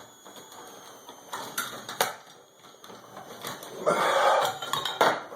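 Handling of a light fixture's metal parts and wiring during installation: scattered light clicks and knocks, with a short rustle about four seconds in.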